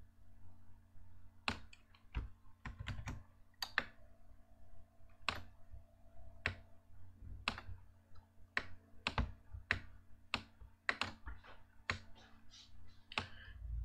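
Irregular clicks of a computer mouse and keyboard, some coming in quick clusters, over a faint steady electrical hum.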